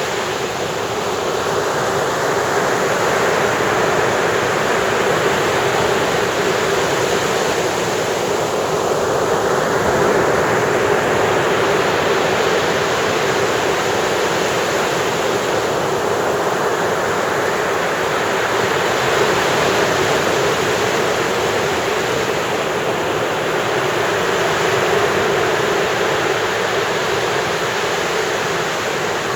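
Ocean surf washing onto the beach: a steady, continuous rush of breaking waves that swells and eases only slightly.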